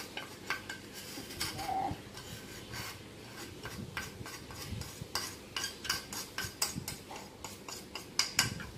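A spoon scraping and tapping against a small bowl as wheat flour is scraped out into a mixing bowl: an irregular run of light clicks and scrapes, a few sharper taps near the end.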